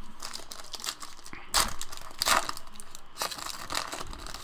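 Foil wrapper of a Topps trading-card pack crinkling and tearing as it is opened, in several short rustling bursts, the loudest about halfway through.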